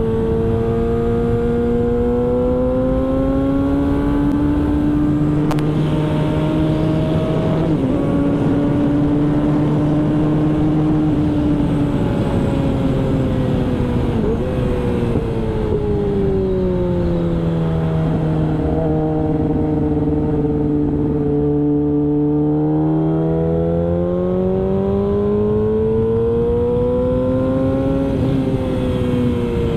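Onboard sound of a Yamaha R6's four-cylinder engine at track speed. Its pitch climbs and falls smoothly as the rider works the throttle, with brief breaks at gear changes and a long drop to low revs in the middle before it climbs again.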